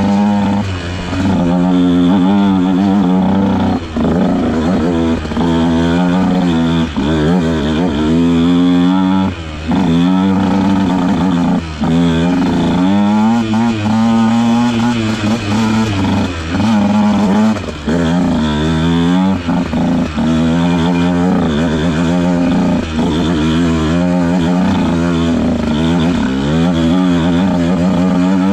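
Husqvarna TC 150 dirt bike engine on the move, its pitch rising and falling every second or two as the throttle is opened and rolled off, with brief dips in loudness between.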